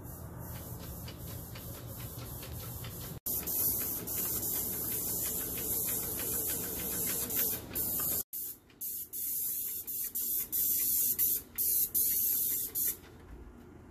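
Paint spray gun hissing as paint is sprayed onto a stucco wall. From about eight seconds in, the spray comes in short bursts, stopping and starting many times as the trigger is released and pulled again. A low hum sits under the first few seconds.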